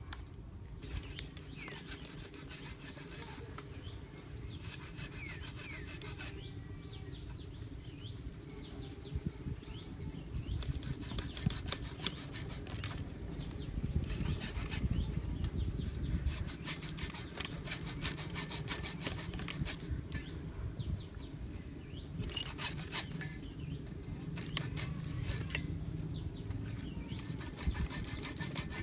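Hacksaw cutting through a blue PVC pipe in steady back-and-forth strokes.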